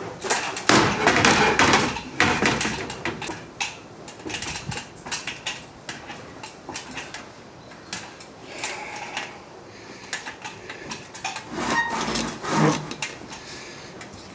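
Irregular knocks, clicks and clatter of hand work with metal fittings and tools, with a louder scraping rustle about a second in.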